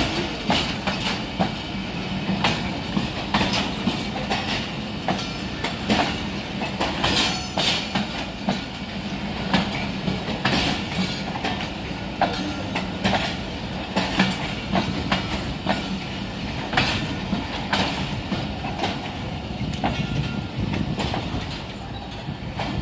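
Pakistan Railways passenger coaches rolling slowly past, their wheels clacking over rail joints a few times a second over a steady rumble and low hum.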